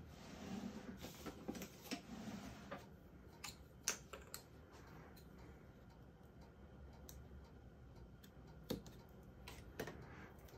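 Faint handling noise from paper crafting: soft rustling of card pieces, then a few sharp clicks as scissors snip foam mounting strip.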